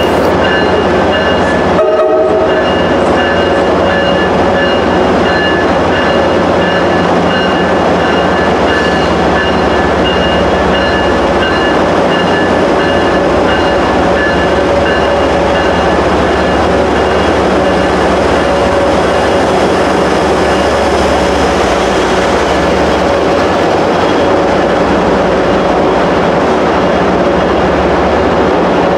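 MBTA HSP46 diesel locomotive running as it pulls its commuter coaches slowly past, loud and steady with several held whining tones over the engine noise. A single sharp clunk comes about two seconds in.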